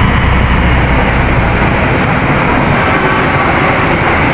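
Thermal fogging machine for dengue mosquito control running loudly and steadily, a dense unbroken drone.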